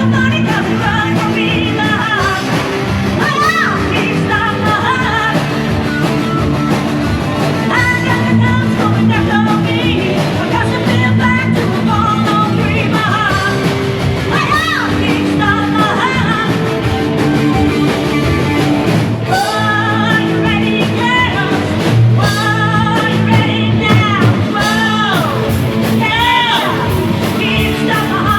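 Rock music with a singing voice over a steady band accompaniment.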